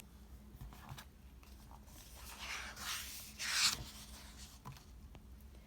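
Paper rustling as a picture book is handled and its pages turned: two short swishes about two and a half and three and a half seconds in, with a few light clicks.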